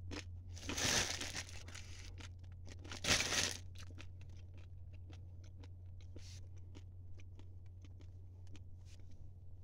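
Plastic zip-lock bag crinkling twice as a handful of dry, crushed instant ramen is taken out, then faint rapid crunching as the uncooked noodles are chewed. A low steady hum runs underneath.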